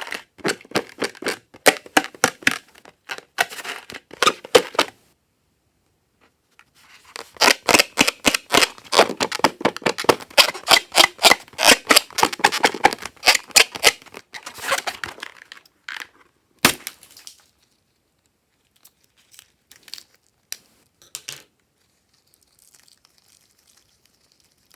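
Slime being squeezed and worked by hand, giving rapid sticky clicks and crackles in two long runs. A single sharp snap follows, then a few scattered soft clicks.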